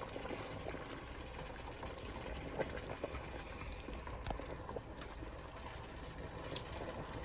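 A pot of collard greens in their cooking liquid being stirred with a spoon: a steady liquid bubbling and sloshing with a few light knocks of the spoon against the pot.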